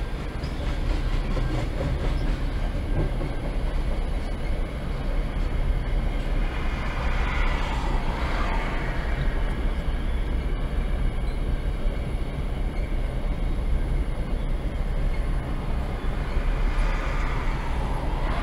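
Freight train of tank cars and empty covered hopper cars rolling steadily past a level crossing: a continuous rumble and clatter of steel wheels on rail. Short swells of higher-pitched noise come about eight seconds in and again near the end.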